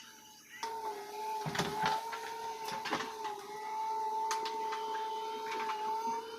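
Backhoe loader working: a steady mechanical whine begins about half a second in and holds, with scattered clicks and knocks over it.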